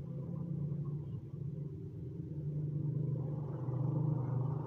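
Steady low rumble, growing a little louder near the end.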